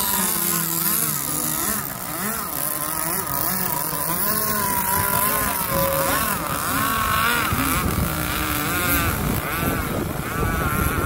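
Two-stroke Zenoah gas engine of a radio-controlled race catamaran running at speed on the water, its pitch rising and falling as it throttles and turns.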